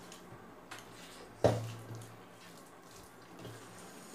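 Fingers squishing and mixing rice and curry on a metal plate, with faint wet clicks, and one sharp knock about a second and a half in.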